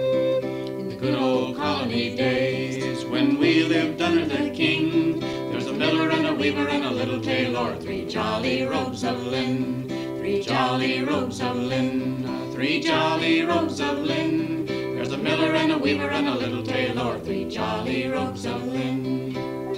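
Background music: a song with acoustic guitar accompaniment and a lead melody line over it.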